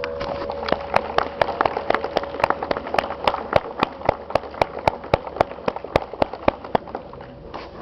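A small audience clapping as the bell ringing ends, in separate uneven claps rather than a dense roar, thinning out near the end. One bell's tone still dies away underneath.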